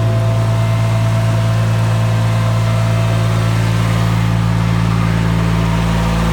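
Turbocharged Ford 1720 tractor diesel running at a steady speed, driving a 25 kW Generac PTO generator under load from a 9.5 kW heater. It makes a constant drone with a steady low hum.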